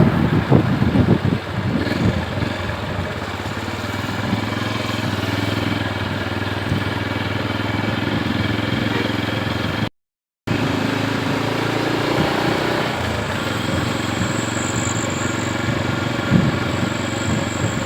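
Road vehicle engines running steadily, with a brief cut to silence about ten seconds in.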